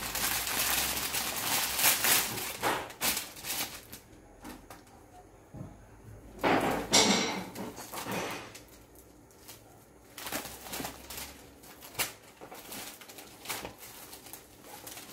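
Clear plastic packaging crinkling as a folded Paithani silk saree is pulled out of it and opened, followed by softer rustling of the silk and small knocks as the saree is spread out on the table. There is one loud burst of crinkling about midway through.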